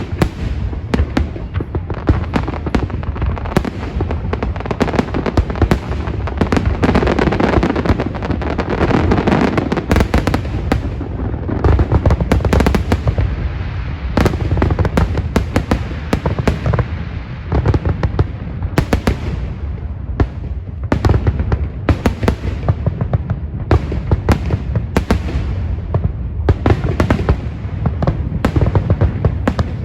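Fireworks going off in a dense, continuous barrage of sharp pops and crackles over a steady low rumble.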